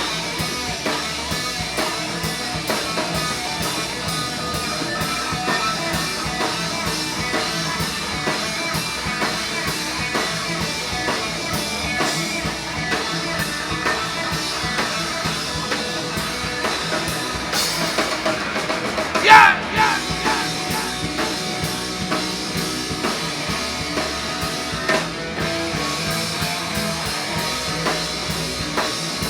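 Instrumental section of a rock song: drum kit and guitar playing a steady beat, with one brief, loud sliding sound about two-thirds of the way through.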